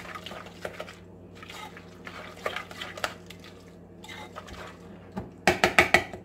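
Metal utensil stirring dressed chicken salad in a ceramic bowl: soft wet squishing with light scrapes and clinks against the bowl, then a quick run of louder clacks near the end.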